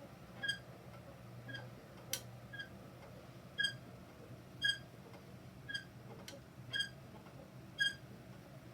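Peloton exercise bike squeaking: a short, high chirp repeating about once a second, with a sharper click about two seconds in. A steady low hum runs underneath.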